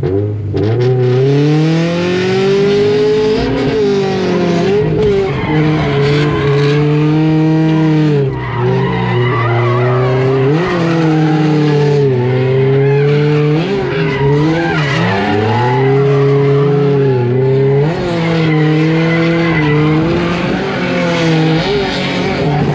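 Drift car's engine launching and then revving hard through a competition run, held high with repeated quick dips and rebounds in pitch as the throttle is lifted and reapplied, with tyres squealing as the car slides. Heard from inside the car.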